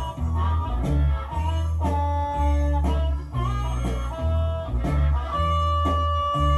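Blues-rock music with a steady, heavy bass riff and held, bending guitar notes.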